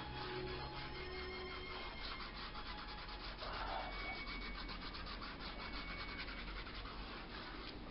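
Fingers rubbing firmly back and forth on watercolour paper, a steady dry scratchy rubbing.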